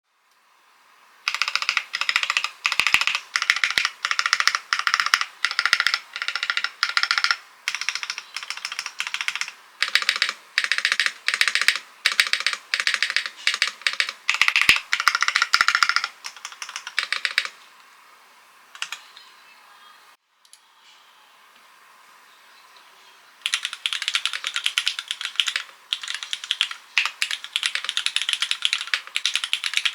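Typing on a full-aluminium TKL mechanical keyboard with Cherry MX Black linear switches, a carbon plate with no foam, and ABS and PBT keycaps: fast runs of keystrokes in short bursts. The typing stops at about 17 seconds, and after a few lone strokes and a quiet gap it resumes in a steady stream at about 23 seconds.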